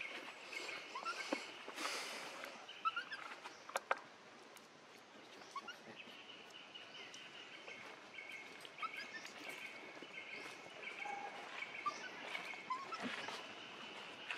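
Forest ambience: scattered short chirps over a steady high-pitched drone that fades and returns, with a few light clicks.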